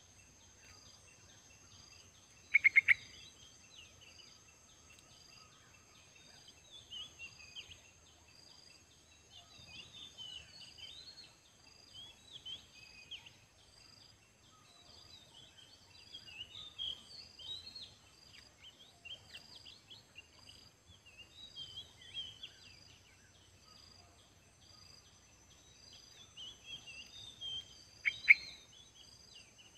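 Merbah kapur, a bulbul, chirping and chattering in short phrases, with two loud close bursts of calls about three seconds in and near the end. A steady high insect drone and a faint pulsing insect note run underneath.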